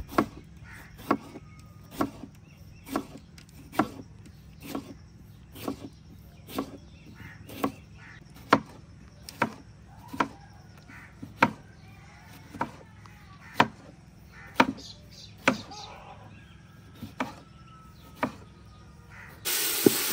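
Knife chopping tomatoes on a cutting board, one sharp knock about every second. Near the end it gives way to the loud sizzle of frying.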